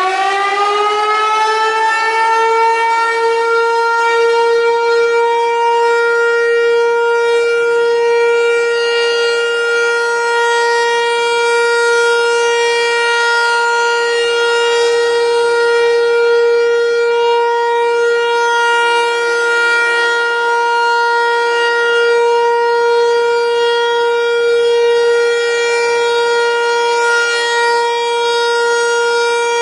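American Signal Corporation T-128 outdoor warning siren sounding for its monthly test. It finishes winding up in pitch in the first second or two, then holds one steady wail, its loudness swelling and fading slightly.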